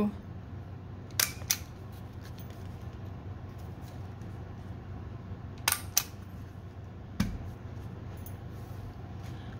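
Hands handling stiff craft paper and small objects on a tabletop: a few sharp clicks and taps, two close pairs and then one more, over a steady low hum.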